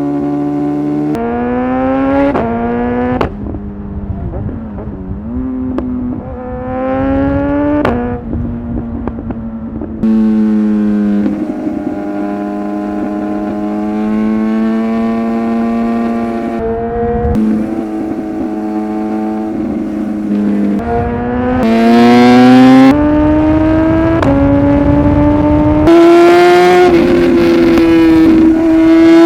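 Superbike engine pulling hard, its pitch climbing and dropping back several times as it goes through the gears, with steady cruising stretches between, over a rush of wind.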